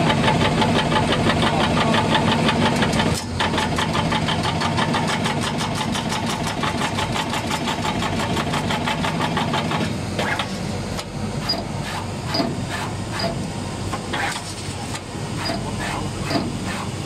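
Channel letter bending machine running. It makes a fast, even mechanical rattle over a steady motor hum for about the first ten seconds, then the sound breaks into separate clicks and short whirs.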